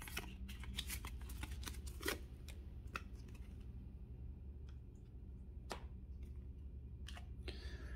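Pokémon trading cards being handled and laid down onto stacks on a playmat: scattered light taps and flicks of card stock, over a low steady hum.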